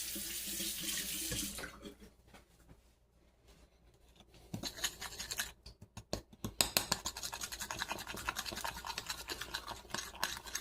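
Kitchen tap running, stopping about two seconds in. After a short pause, an egg is beaten with a utensil in a mixing bowl: fast, steady scraping strokes.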